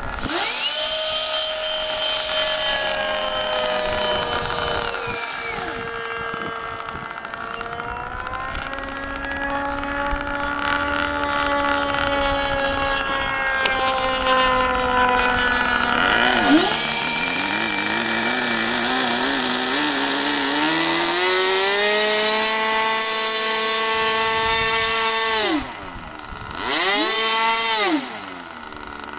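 Small nitro glow engine of a hybrid RC airplane running at changing throttle, its pitch rising and falling, with a steady high whine from the plane's two electric ducted fans that switches on and off twice. Near the end the engine drops back toward idle, is revved once briefly, and drops again.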